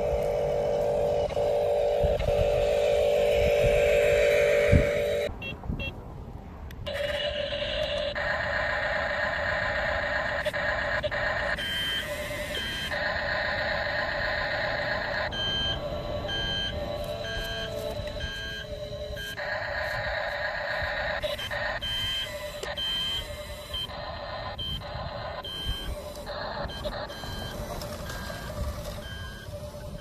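RC construction models' electric drive motors whining steadily, then the RC bulldozer reversing down a trailer ramp with a reversing beeper sounding about once a second.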